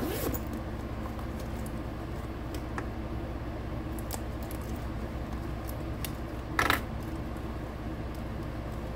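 Handling sounds of headphones being pushed into a small clip pouch on a bag's handle: scattered light clicks and rustles, with one louder scrape about two-thirds of the way through.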